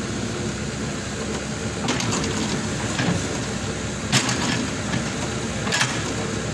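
Excavator's diesel engine running steadily, with a few sharp clanks about two, three, four and six seconds in.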